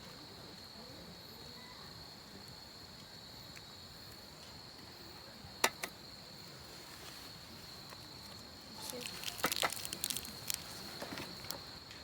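Insect chorus from crickets or cicadas, a steady high-pitched chirring. A sharp click comes about five and a half seconds in, and a run of clicks and light clatter follows around nine to eleven seconds.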